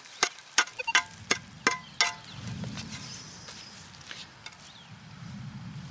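A quick run of about seven sharp taps in two seconds, some with a short ring, as earth is knocked off a just-dug object, followed by a soft low rustle as the soil clump is worked by a gloved hand.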